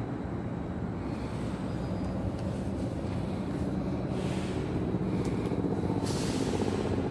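Low steady rumble of a train on the line, growing slightly louder in the second half, with two short hisses about four and six seconds in.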